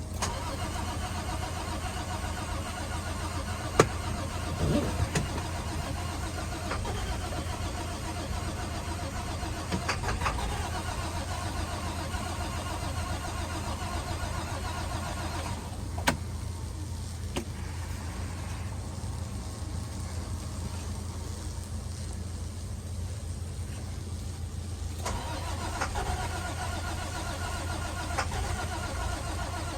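International WorkStar work truck engine running with a steady low drone. A few sharp clicks or knocks sound over it, and the higher part of the sound drops away for several seconds in the middle.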